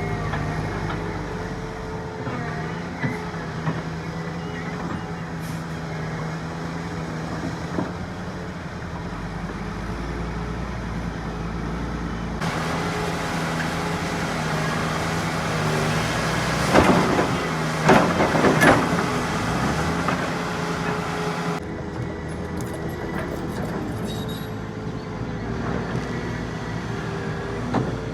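Heavy diesel machinery running steadily, the engines of a large excavator and dump trucks. A louder rushing noise sets in partway through and stops suddenly, with a few loud bangs in the middle of it.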